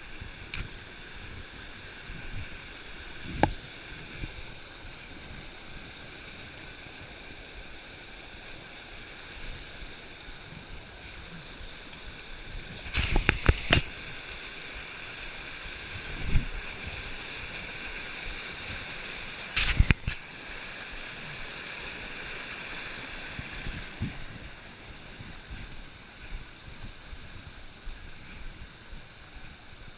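Mountain creek rushing over rocks, a steady hiss of running water. Several sharp thumps break through it, once early, in a cluster about halfway, and again a few seconds later.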